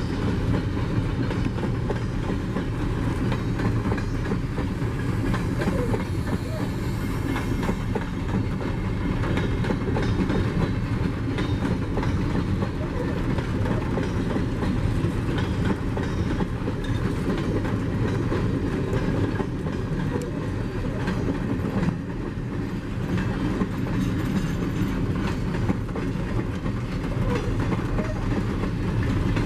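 Empty mineral hopper wagons of a long freight train rolling past, their wheels clattering steadily over the rail joints.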